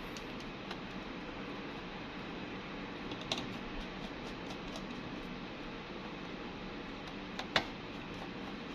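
A few light, sharp clicks of small tools and parts being handled during a phone repair, the loudest about three quarters of the way in, over a steady background hiss.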